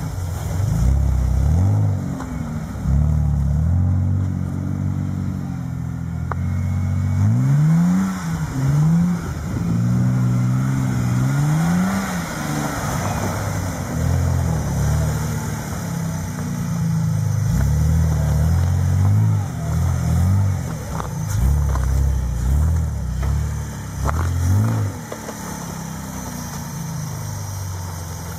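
Engine of a custom-built off-road truck on oversized tyres, revving up and down again and again as it is driven slowly over snow and mud. There are several quick blips of the throttle about a third of the way in, and it settles to a lower, steadier note near the end.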